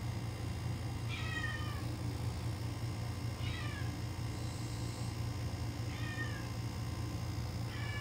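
A cat meowing four times, short calls that fall in pitch, about two to two and a half seconds apart.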